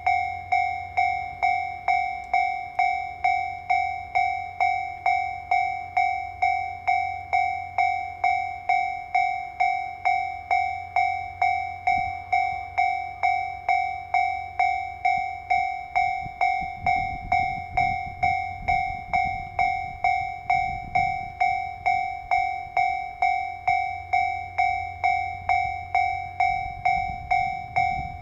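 Japanese level-crossing warning bell ringing steadily, a two-tone electronic strike about twice a second. Under it runs the low rumble of a train on the line, which swells twice in the second half.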